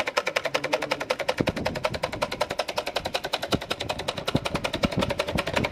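A battery-powered toy fish-tail boat running on water: its small electric motor's crank drives the rudder back and forth, making a rapid, even puck-puck ticking. A few duller knocks come in among the ticks.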